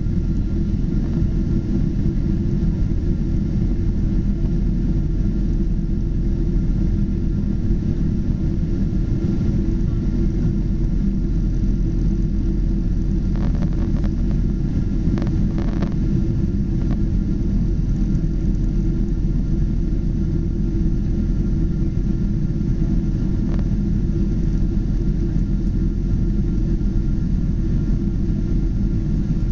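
Boeing 777 engine and airflow noise, a steady low rumble, with a faint steady whine above it and a few faint clicks about halfway through.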